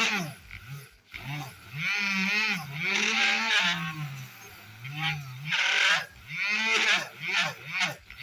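Background music with a voice-like lead melody that glides up and down in phrases of about a second, with quicker repeated swoops near the end.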